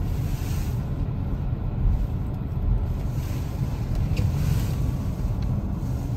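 Car driving slowly, heard from inside the cabin: a steady low rumble of engine and tyres.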